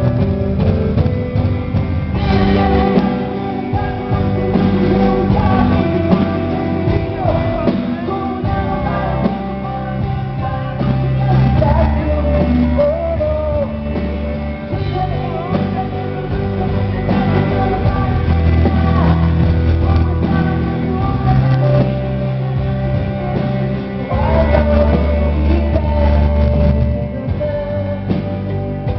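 A live rock band playing a song: a woman singing lead over acoustic guitar and drums.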